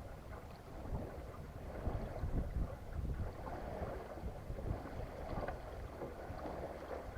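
Wind buffeting the microphone, with water washing along the hull of a small sailboat under sail.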